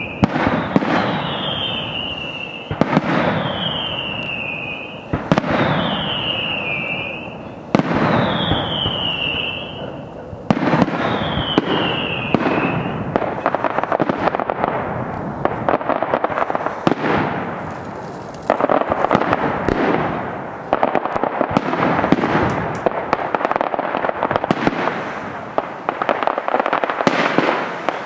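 Daytime fireworks display. For about the first half, aerial shells bang roughly every two and a half seconds, each followed by a falling whistle. After that comes dense crackling and rapid popping with louder bangs now and then.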